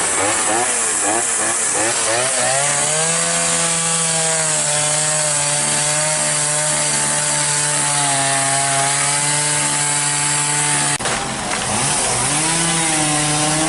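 Chainsaw engine revving up and down in quick blips, then held at a steady high speed for several seconds, typical of cutting through a fallen tree. About eleven seconds in the sound breaks off abruptly with a click, then the saw dips and revs up again.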